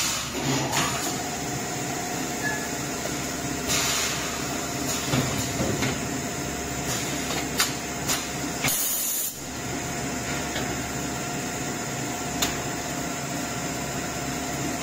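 Steady hiss and hum of a hot-air bag-sealing machine running, with plastic diaper-pack bags crinkling as they are handled. A few short, loud bursts of noise stand out, the longest about nine seconds in.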